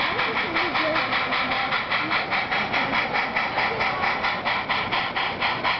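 HO-scale model steam locomotive, Strasburg Rail Road #90, chuffing steadily through its onboard sound decoder's speaker: an even rhythm of steam exhaust puffs, about six a second, as the train runs in to the station.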